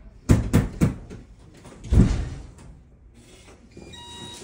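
Three quick knocks on a door, then a single heavier thud about two seconds in. Near the end, short electronic beeps from a digital door lock's keypad start.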